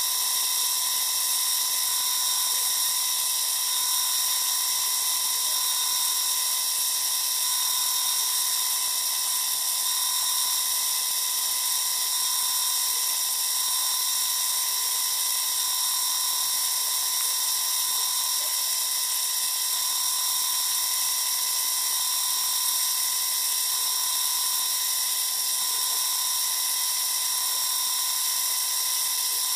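Bench drill press running steadily with a high whine, spinning a sanding pad against a stone held up to it for polishing.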